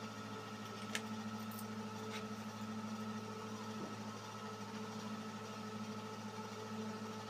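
Steady low mechanical hum in a small room, with two faint clicks about one and two seconds in.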